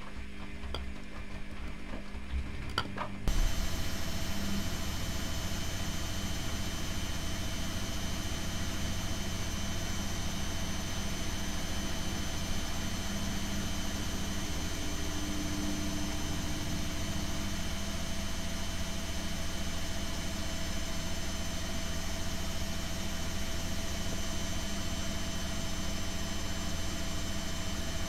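Privileg Classic 30612 front-loading washing machine. The drum tumbles with a few clicks, then about three seconds in the sound jumps to a louder, steady motor whine and hum as the drum spins fast.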